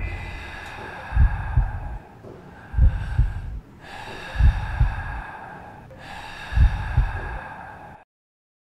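Heartbeat sound effect: four slow double thumps, each beat a 'lub-dub', over a steady eerie drone. The sound cuts off to silence near the end.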